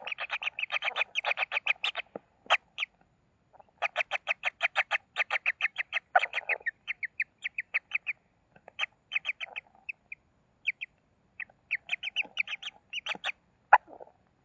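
Kingfishers calling: fast runs of short, high, sharp notes, several a second, in bursts broken by short pauses, with a single louder note near the end.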